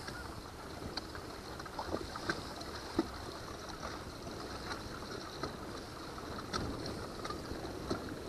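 Kayak moving across a choppy lake: water lapping and splashing steadily against the plastic hull, with scattered light knocks and ticks.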